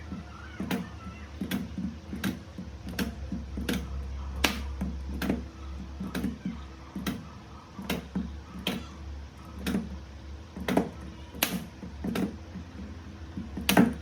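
Battery spot welder firing weld after weld onto nickel strip on 18650 cells, a sharp snap about every second at a slightly uneven hand-worked pace, over a steady low hum.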